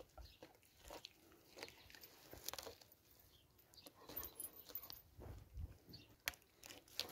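Faint wet clicks and rustles of a Kangal dog gripping and tugging at a raw leg of meat, with two sharper clicks near the end.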